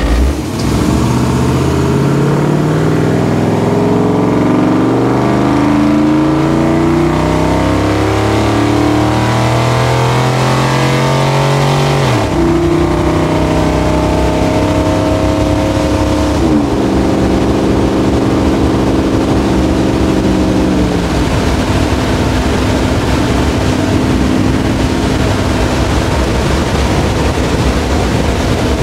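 Divco milk truck's engine pulling away and accelerating through a manual gearbox, heard from inside the open cab. The engine climbs in pitch for about twelve seconds, drops at an upshift, climbs again and drops at a second shift about four seconds later, then eases down and settles into a steady cruise for the last third, with road and wind noise throughout.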